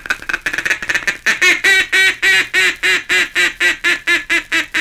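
Mallard duck call blown in the feeding chuckle: about a second of rapid chatter, then a steady string of short, even quacks at about five a second, imitating a contented mallard hen to draw a flock in. It is heard from an old 78 rpm record.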